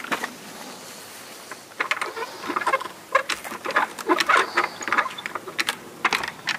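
Repeated clicks and rattles of an old church door's iron ring-handle latch being twisted and tried; the door is locked and stays shut. Plastic bags rustle at the same time.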